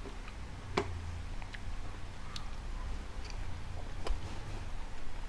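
A person chewing a bite of sushi roll close to the microphone, with a few sharp mouth or eating clicks, the loudest about a second in.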